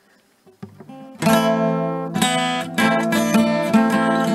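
Background music: acoustic guitar, a few soft plucked notes, then strummed chords starting about a second in.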